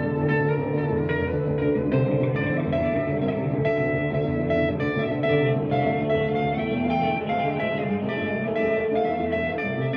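Instrumental music led by guitar: a steady stream of plucked notes over sustained low bass tones.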